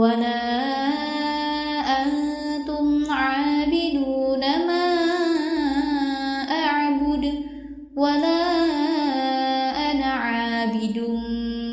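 Melodic Quran recitation: a single voice chanting in long, drawn-out, ornamented notes. It goes in two long phrases with a brief breath about eight seconds in.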